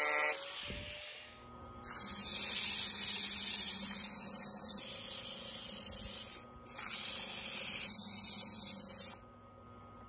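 Sanding disc rubbing against a spinning oak-and-turquoise cup on a wood lathe: a loud, hissing abrasive sound in two long passes with a short break between them, stopping shortly before the end. A low steady hum from the lathe runs underneath, and a short falling whine winds down just after the start.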